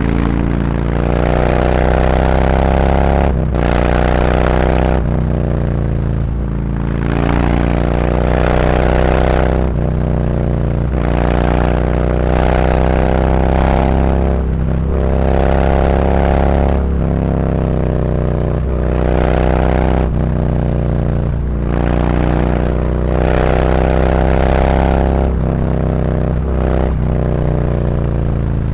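Harley-Davidson Road Glide's V-twin engine through SuperTrapp slip-on mufflers with 4-inch internal discs, riding in traffic. The exhaust note climbs in pitch as the bike accelerates, then drops back, again and again every couple of seconds, over a steady low rumble.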